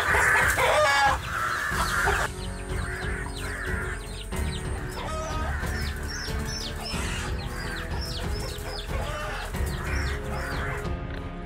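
A chicken squawks loudly in distress for about two seconds while a bird of prey attacks it, then the sound drops to quieter repeated short high chirps over background music.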